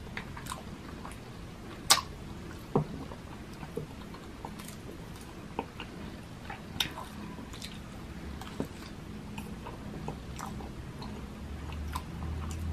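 Close-up chewing and mouth sounds of eating champorado, a sticky chocolate rice porridge, with a metal spoon now and then clinking and scraping against a glass bowl; the sharpest clinks come about two and three seconds in.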